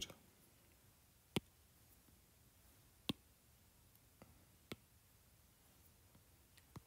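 Stylus tip tapping on a tablet's glass screen while brush strokes are made: three sharp clicks about a second and a half apart, with a couple of fainter ticks, over near silence.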